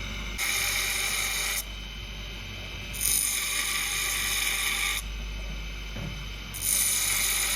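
Grinder cutting saw teeth into a steel hunting-knife blade: three passes of high-pitched grinding of the wheel on the steel, each one to two seconds long, with the grinder running on more quietly between them.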